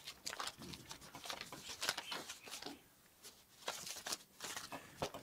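Paper banknotes rustling and crinkling as they are handled and flicked through by hand, in a run of short rustles with a brief lull about three seconds in.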